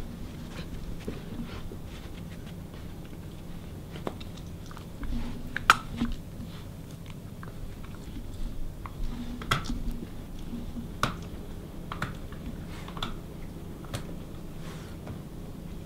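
Poodle–Bedlington terrier cross dogs chewing and tearing at a stuffed toy, with irregular sharp clicks and snaps, the loudest about six seconds in.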